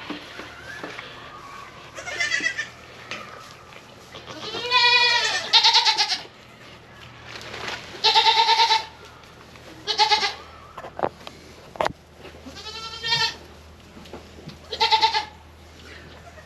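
Goats bleating: a series of about seven loud, wavering calls, each under a second long, spread irregularly.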